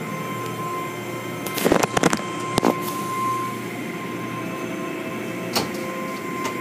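Automatic car wash running: a steady machinery hum with a thin high whine as the soft-cloth curtains work over a foamed car. A quick cluster of sharp knocks comes about two seconds in, with single knocks a little later and again near the end.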